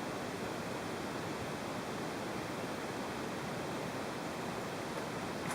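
Steady, even hiss of background noise, with a single sharp click at the very end.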